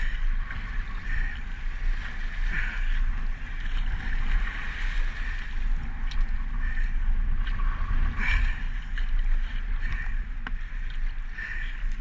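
Sea kayak paddle strokes in choppy water: a swish and splash every second or two over the steady wash of waves against the hull, with a low rumble of wind on the microphone and one sharp knock about ten and a half seconds in.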